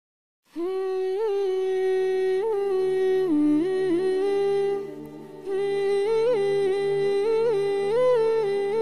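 A voice humming a slow, wordless gojol melody with long held notes and quick ornamental turns, over a low steady drone. It begins after half a second of silence and pauses briefly about five seconds in.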